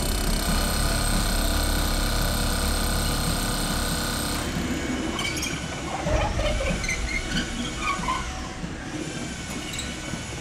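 Power drill boring into a concrete slab, a steady high-pitched grinding whine that stops about four and a half seconds in. Scattered faint knocks and short tones follow.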